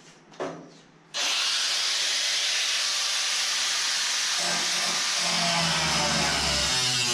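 A power tool switched on about a second in, giving a loud, steady hiss as it cuts at a stuck quarter panel, with a low rumble joining in from about halfway through.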